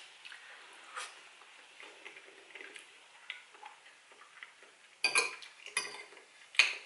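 Metal fork and knife clinking and scraping against a ceramic bowl-plate, with a cluster of sharp clinks about five seconds in and another near the end. Soft chewing sounds in between.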